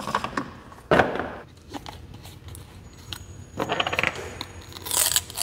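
Plastic coolant reservoir cap of a Ford F-150 SVT Lightning being unscrewed and handled: scattered clicks and rattles, with a sharper knock about a second in and a short scraping hiss near the end.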